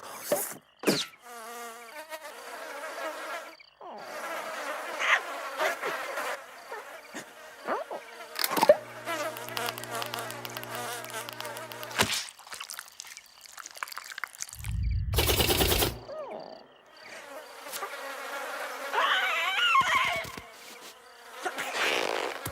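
A buzzing fly in a cartoon soundtrack, among short comic sound effects, with a steady low hum partway through and a loud burst of noise about fifteen seconds in.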